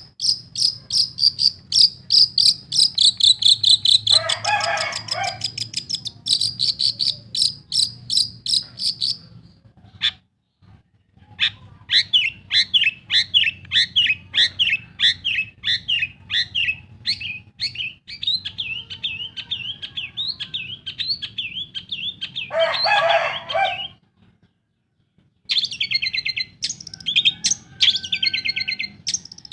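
Long-tailed shrike (pentet) singing: rapid runs of high, quickly repeated notes. A harsh grating call cuts in twice, a few seconds in and about two-thirds of the way through, and the song breaks off briefly twice. A faint low hum sits underneath.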